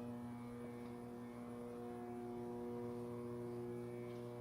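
Steady electrical hum with a stack of even overtones from a running Sierra Therm conveyor belt furnace on a 480-volt supply.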